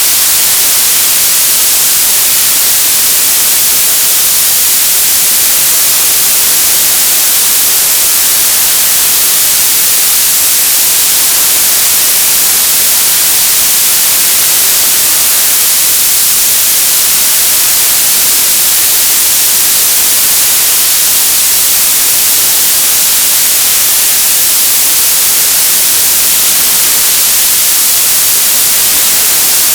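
Television static: a loud, steady hiss of untuned TV noise, bright and high-pitched, with no change throughout.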